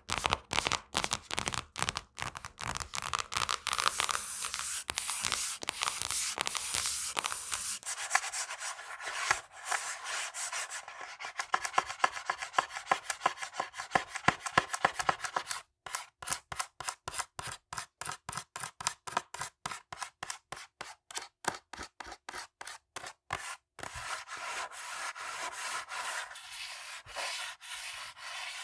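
Fingernails scratching fast over textured surfaces of small objects in quick, even strokes. The surface changes several times: dense, full-sounding scratching first, then brighter, thinner strokes, then a stretch of separate strokes about four a second, then dense scratching again.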